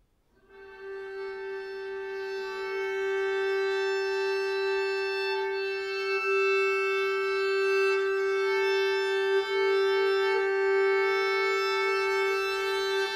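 Violin and viola bowing long sustained open-string notes together, entering softly about half a second in and swelling over the first few seconds into a steady drone. The violin is tuned in just fifths and the viola partly retuned to mean-tone fifths, so the drone sets the two tunings against each other.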